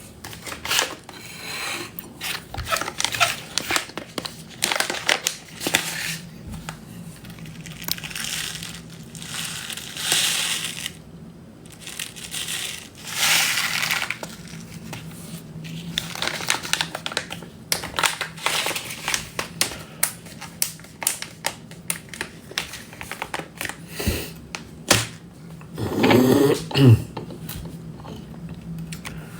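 Irregular crinkling and rustling of something being handled, with many scattered clicks and a few hissy swells, over a faint low steady hum.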